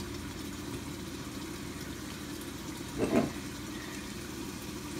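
Shredded cabbage tipped into a non-stick frying pan of hot oil, giving a soft, faint sizzle over a steady low hum. A brief, slightly louder sound comes about three seconds in.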